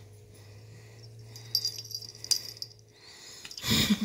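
A kitten tussling over a cat collar: faint high clinks and tinkles about halfway through, then a short, sharp hiss from the kitten near the end.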